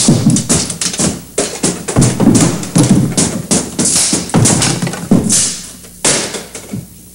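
A run of irregular knocks and thumps, several a second, which grows quieter near the end.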